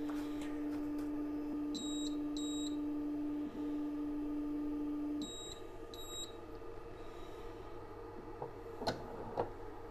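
Resin 3D printer's Z-axis stepper motor running with a steady tone, which stops abruptly about five seconds in. Two light handling clicks follow near the end.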